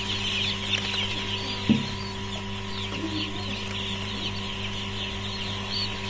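A large flock of three-day-old poultry chicks peeping continuously, many high chirps overlapping into a dense chatter, over a steady low hum.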